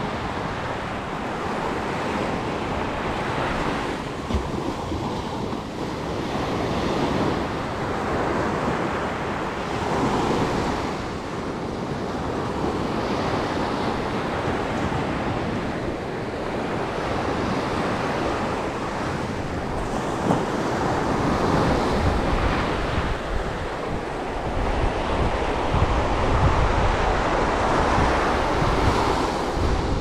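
Sea surf washing onto a sandy beach, surging every few seconds, with wind buffeting the microphone, heavier in the last several seconds.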